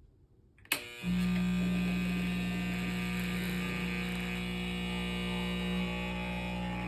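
Breville Dual Boiler espresso machine clicking on about a second in, then giving a steady, loud electric buzz: the strange sound its owner is asking about.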